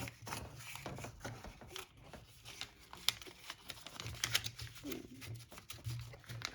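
Paper being folded and pressed by hand: scattered rustles and crinkles with light taps.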